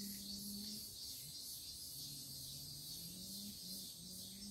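Forest insect chorus: a steady high shrill with a quick, even pulse. A faint low hum runs underneath, dipping in pitch and climbing back in the middle.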